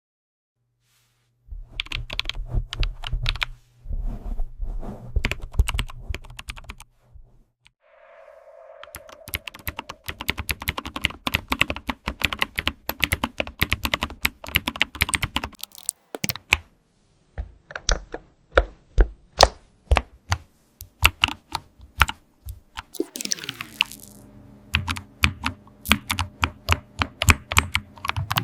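Typing on a computer keyboard: fast runs of keystroke clicks, then slower, separate, louder key presses in the second half.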